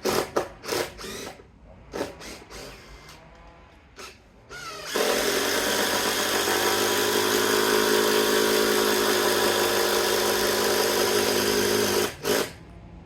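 A power tool runs in several short bursts, then steadily for about seven seconds before cutting off, with one more brief burst just after.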